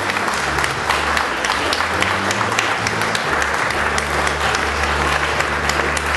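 Crowd applauding: many hands clapping at once.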